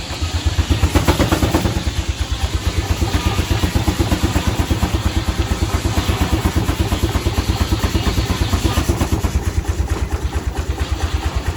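1912 Case 40 hp steam traction engine running, its exhaust giving an even, rapid beat of several pulses a second, a little louder about a second in.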